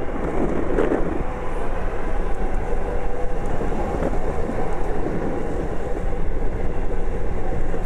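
Skateboard wheels rolling over asphalt, a steady rumble.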